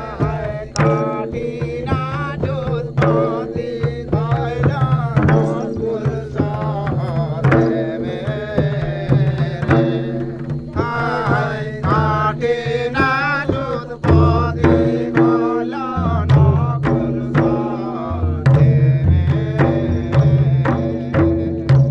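Live folk music: hand-played two-headed barrel drums keep up a steady beat under a wavering high melody.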